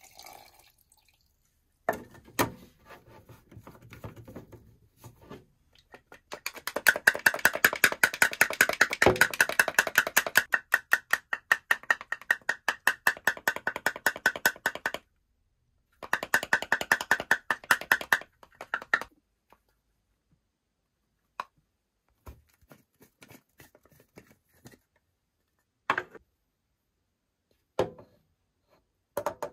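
Water pouring briefly into a clear plastic toy tube, then the capped tube shaken hard with water and snow powder inside: a long fast run of strokes, a short pause, and a second shorter run. A few separate plastic knocks follow near the end as the tube is opened.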